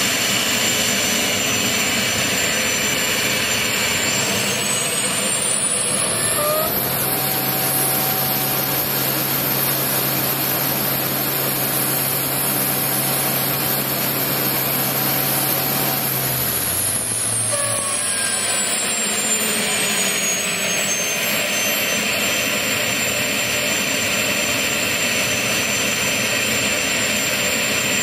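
Small gas turbine engine running with a loud rushing noise and a high whine; about four seconds in the whine climbs as the turbine spools up, holds high for around nine seconds, then falls back as it spools down.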